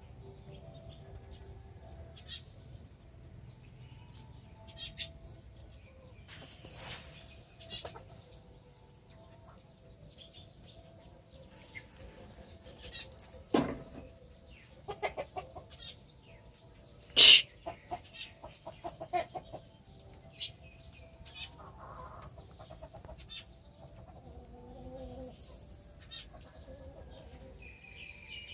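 Kittens at play on a concrete floor around a fabric cat house: sporadic light scuffs and knocks, the loudest a sharp click about seventeen seconds in, over a quiet steady background.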